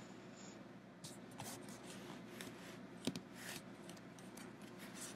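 Faint rustling and rubbing from a tablet being handled against bedding, with a soft click about three seconds in.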